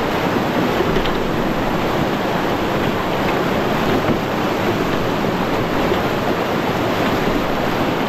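Whitewater rapid rushing steadily around a raft.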